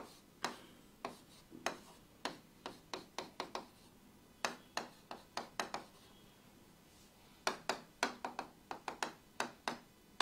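Pen tapping and clicking against a writing board while drawing: sharp short clicks in uneven clusters, with a pause of about two seconds past the middle.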